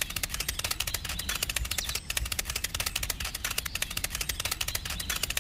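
A rapid, even run of light clicks, about ten a second, keeping a steady pace.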